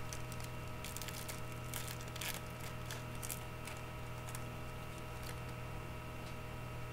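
Hockey trading cards being handled and flipped through by hand: faint scattered rustles and light clicks, most frequent in the first couple of seconds, over a steady electrical mains hum.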